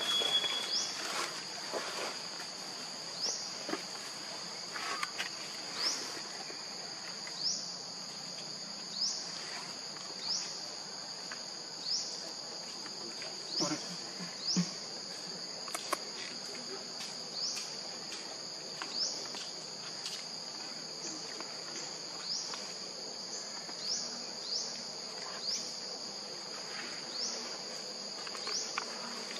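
Insects calling in a steady high buzz, with a short rising note repeating about every one and a half seconds.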